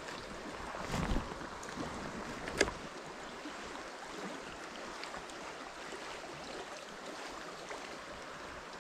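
River water rushing steadily past, with a dull knock about a second in and a sharp click about a second and a half later.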